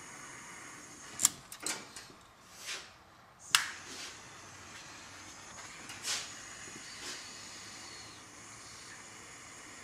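Small clicks and rustles of a soldering tool and wires being handled, over a steady faint hiss. The loudest are two sharp clicks, about a second and about three and a half seconds in.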